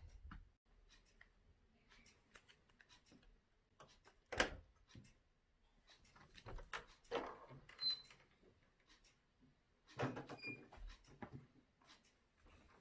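Mostly quiet room with a few scattered knocks and scrapes of things being moved or bumped; the loudest knock comes about four seconds in, with smaller clicks and scrapes a few seconds later.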